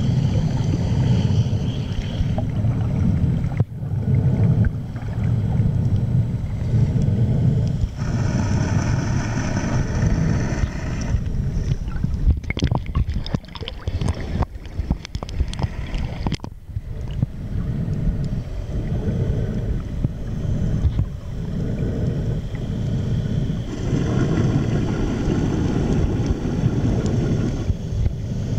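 Underwater recording on a snorkeler's camera: a steady low rumble of water against the camera housing, with a faint high hum that comes and goes twice. About halfway through there are a few seconds of splashing and crackling as the camera breaks the surface.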